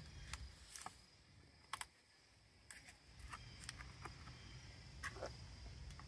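Faint, irregular clicks and ticks of hard plastic as the retaining tabs of a fuel pump module's plastic housing are worked loose by hand and with a screwdriver, the sharpest click a little under two seconds in.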